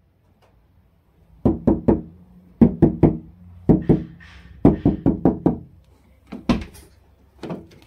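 Knuckles knocking on a Dacia Spring's door panels, about fifteen knocks in quick groups of two to four. The door has no insulating material inside, and its panels sound bad when struck.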